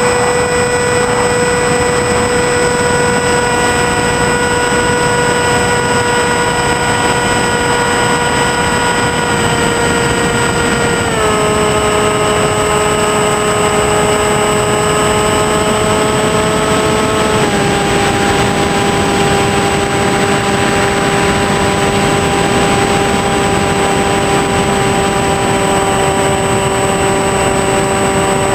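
Small electric RC airplane's motor and propeller heard from the onboard camera, a steady whine with a rush of wind noise. The pitch steps down twice, about ten seconds in and again a few seconds later, as the throttle is eased back.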